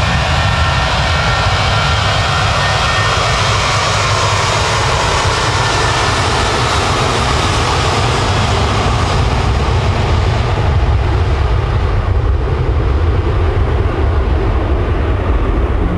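Jet aircraft engines running loud, with a whine that glides slowly lower. The high hiss fades away after about ten seconds while the deep rumble carries on.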